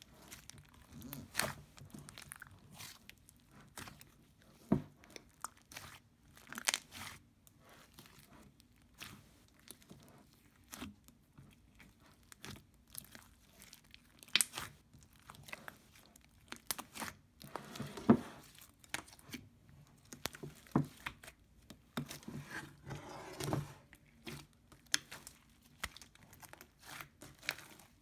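Hands kneading, stretching and squishing a large mass of mixed slime: irregular sticky pops, clicks and crackles, with a few louder crackly squelches.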